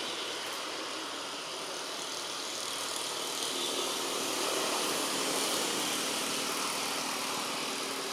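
Steady rushing noise of a motor vehicle passing on the road, swelling a little about halfway through and easing off again.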